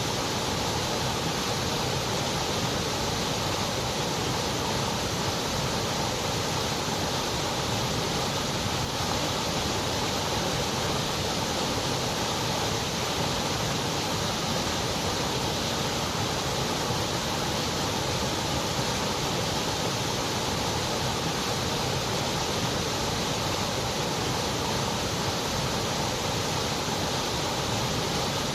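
Steady, unchanging white noise: an even hiss with no rise, fall or interruption.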